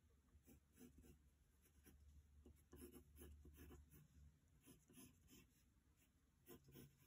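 Pencil sketching on paper: faint, short scratching strokes in quick, irregular succession.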